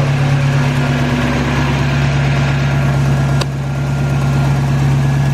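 1985 Toyota 4Runner's engine idling steadily, almost silent, even though the owner suspects worn timing chain guides and valves that need adjusting. A single sharp click about three and a half seconds in.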